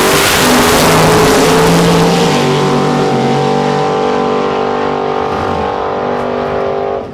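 Two drag-race cars launching off the line and running down the eighth-mile at wide-open throttle, one of them on nitrous and the other naturally aspirated. The loud launch gives way to an engine note that climbs for a couple of seconds, then holds steady and slowly fades as the cars pull away, and it cuts off suddenly near the end.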